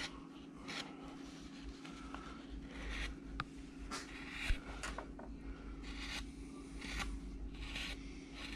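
Hand carving gouge paring curled wood chips across the grain, a string of short scraping cuts about one a second.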